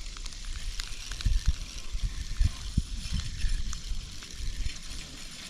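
Water lapping and sloshing against a kayak hull, with irregular soft low knocks.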